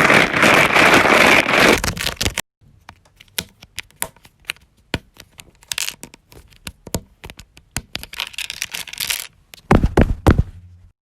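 Homemade sound effects made by handling Lego bricks: a loud rasping, crackling rush at the start, then scattered plastic clicks, two shorter rushes, and a few heavy knocks near the end.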